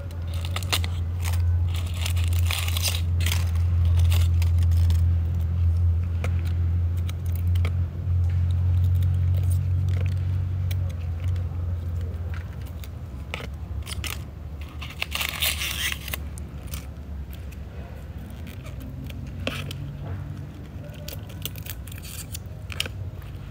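Dry dead leaves being stripped off succulent plants by hand, crackling and crunching in many small snaps and rustles. A low steady hum sits under the first half and stops about halfway through.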